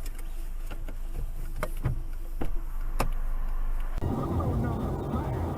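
Car road and engine noise as heard inside a moving car, with a few sharp clicks. About four seconds in it switches abruptly to a louder, rougher rumble.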